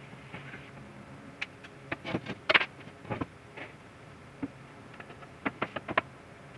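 Scattered sharp clicks and light knocks of small tools and hardware being handled and set down on a workbench, the loudest cluster about two and a half seconds in and a quick run of clicks near the end.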